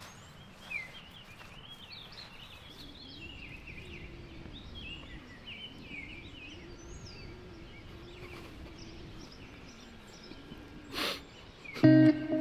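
Birds chirping and singing outdoors over a faint low drone. There is a brief noise burst about eleven seconds in, then guitar music starts near the end.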